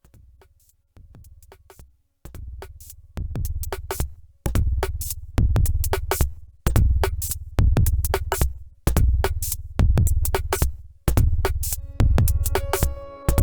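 Drum machine beat, a heavy kick drum with hi-hat ticks, swelling louder over the first few seconds and then holding a steady groove. Sustained synthesizer chord tones come in near the end.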